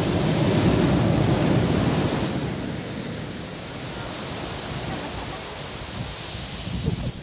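Ocean surf: a wave breaks and its foam washes up the sand, loudest in the first couple of seconds, then a steadier, softer hiss of receding wash.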